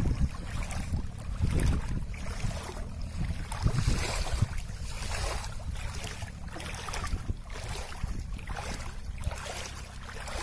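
Wind rumbling on the microphone over water lapping and splashing, the noise swelling and easing in repeated surges; no motor whine stands out.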